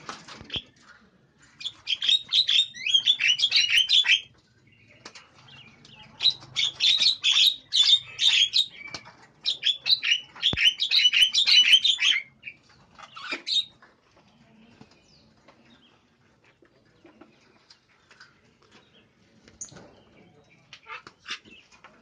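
Javan mynas (jalak kebo) squabbling in an aviary: three loud bursts of harsh, chattering squawks of two to three seconds each, with flapping wings, and a shorter burst a second after the third. They are being set to fight each other.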